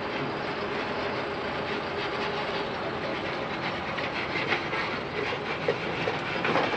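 Decorated truck (dekotora) driving slowly in, a steady running noise with a few short clatters from about four seconds in.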